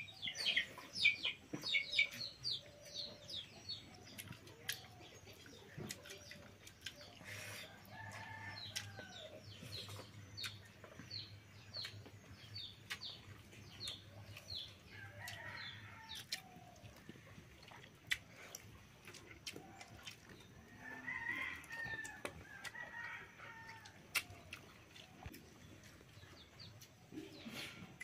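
Chickens clucking and calling, with rapid runs of short, high, falling chirps, thickest in the first couple of seconds. Scattered light clicks run throughout.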